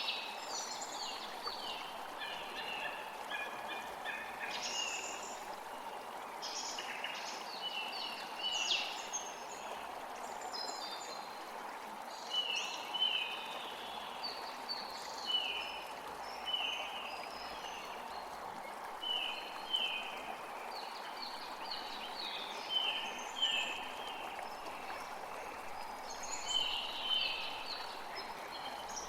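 Steady hiss of rain with birds singing throughout. One bird repeats a short falling note about once a second through the middle stretch.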